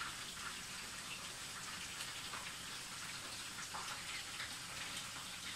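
Faint steady hiss with scattered soft crackles: hot oil frying in a pan.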